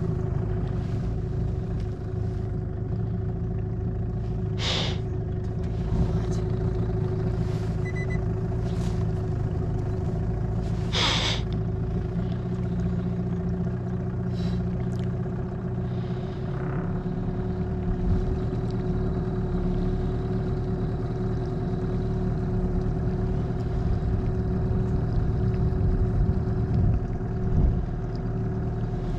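Boat's outboard motor running steadily at low speed, a constant drone with a low rumble, with two brief noises about five and eleven seconds in.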